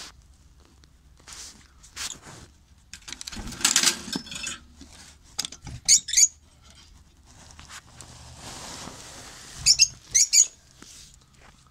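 Lovebirds giving short, high chirps: a couple about six seconds in and a quick run of them near the end. Between them come rustling and clicks from handling around the nest box and wire cage.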